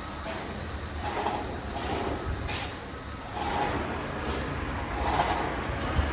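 City street traffic passing on a snow-covered avenue: a steady low rumble of vehicles, swelling several times as they go by.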